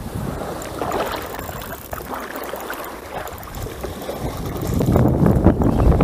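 Wind buffeting the microphone, with small waves lapping in shallow water; the buffeting grows louder in the last second or two.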